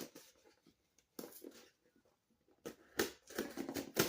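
Shipping package being handled: rustling and scraping in short irregular bursts, one about a second in and a longer run near the end.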